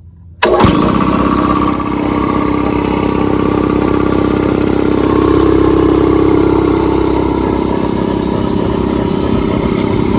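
Portable piston air compressor switching on about half a second in and running steadily, its motor and pump pulsing fast and evenly.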